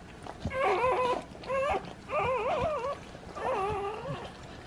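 Newborn puppies crying: about four high, wavering squeals in a row.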